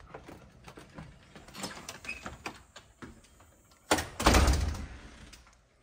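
Andersen door being handled, with small clicks and knocks, then pulled shut with a sharp latch click and a heavy thud about four seconds in.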